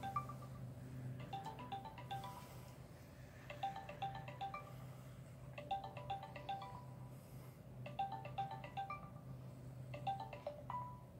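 Smartphone video-call ringing tone: a short melodic run of chime-like notes, repeated about every two seconds while the call waits to be answered. A steady low hum runs underneath.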